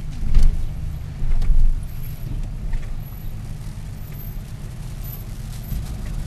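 Low rumble of a car rolling slowly over a planked wooden ferry ramp, heard from inside the cabin, with a few loud thumps in the first two seconds as the tyres cross the boards.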